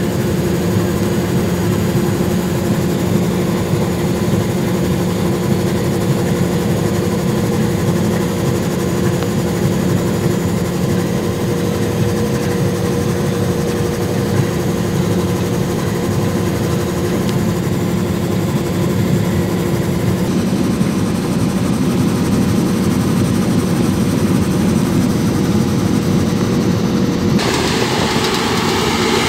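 Claas combine harvester running at steady working speed, heard from inside the cab as an even mechanical hum while it unloads grain into a trailer. Near the end the sound changes abruptly to the combine harvesting, heard from outside.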